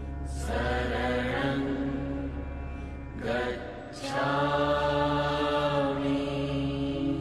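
Chanting voice over music with a steady low drone. It sings two long, held phrases, the second starting about four seconds in.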